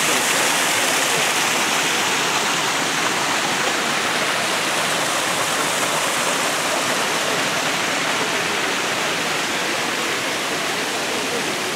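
Water of a small rock cascade pouring into a garden pond, a steady even rush that fades slowly as it goes on.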